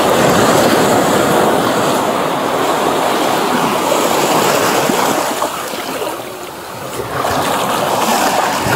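Ocean surf washing over the shallows: a steady rush of breaking waves that eases briefly about six seconds in and then swells again.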